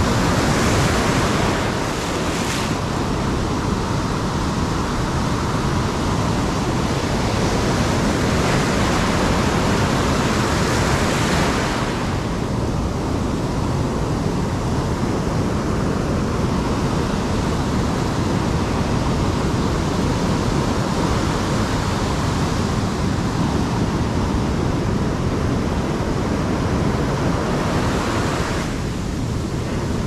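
Heavy surf: waves breaking and foamy wash rushing over the shallows, a loud continuous rush of water that swells in surges, most strongly in the first couple of seconds and again around ten seconds in.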